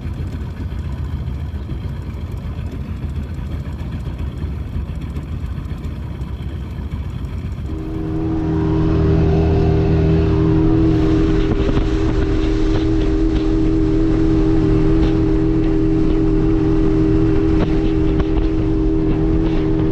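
Boat motor running underway, throttled up about eight seconds in, then holding a louder, higher-pitched steady run.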